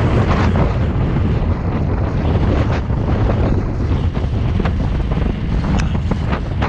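Wind buffeting the microphone over a deep rumble as an unpowered reverse trike coasts downhill on asphalt, with occasional sharp clicks and knocks scattered through it.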